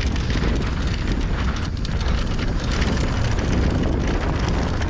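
Mountain bike riding down a dirt trail: steady wind rumble on the microphone, with tyre noise and frequent small clicks and rattles from the bike over rough ground.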